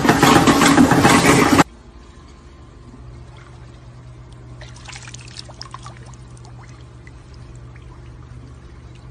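Loud music for about the first second and a half, then cut off sharply. After it, gentle water sloshing and light splashing from a dog swimming in a pool, over a steady low hum.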